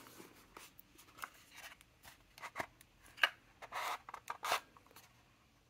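Kraft cardboard pen holder handled, slid out of its sleeve and opened up: quiet dry scrapes, rubs and small clicks of cardboard, with the longer, louder scrapes a little past halfway.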